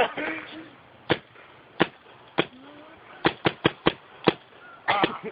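Paintball gun shots, about ten sharp pops spaced unevenly: single shots at first, then a quick run of four, and a cluster near the end.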